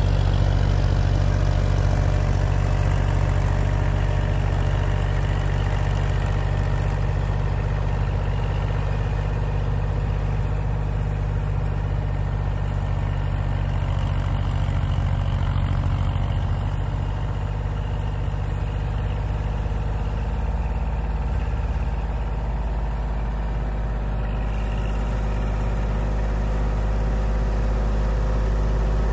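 Kubota L2501 compact tractor's diesel engine running steadily under load, driving a rear-mounted 68-inch MK Martin Meteor PTO snowblower that is throwing deep snow.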